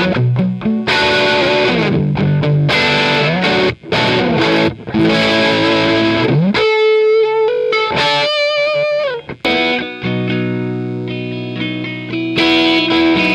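Electric guitar played through Rose Electric Audio's version of the Marshall JTM 45 guitar amplifier, with an overdriven tone. It opens with chords and sliding notes, moves to a short lead phrase of high single notes with vibrato about halfway through, and ends on held chords.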